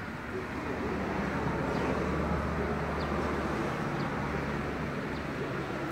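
Road traffic: a motor vehicle's engine running close by, swelling over the first two seconds and then slowly easing off.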